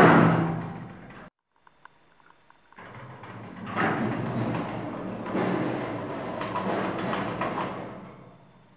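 Lift car's two-panel sliding doors shut with a bang. After a pause of about a second and a half with a few small clicks, they slide open again with a long noisy run and several louder jolts, fading out near the end.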